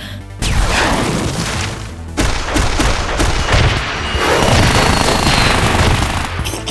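Dubbed-in battle sound effects for a mech fight: a heavy boom about half a second in, then a second blast about two seconds in that runs into a long stretch of rapid rattling, gunfire-like impacts and rushing noise with a faint whine. Rhythmic music comes in near the end.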